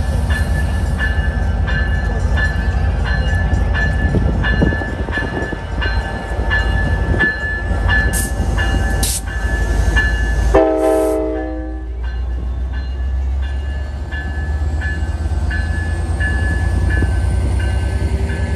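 Metra commuter train led by an F59PHI diesel locomotive passing close with a steady low rumble, sounding one short horn blast of several tones about ten and a half seconds in. A warning bell rings steadily about twice a second, with two brief high squeals just before the horn.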